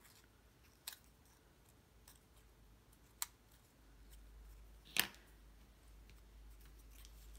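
Faint handling of curled cardstock sunflower petal pieces, with a few soft paper clicks. There is a sharper tap about five seconds in, as a ball-tip stylus tool is set down on the cutting mat.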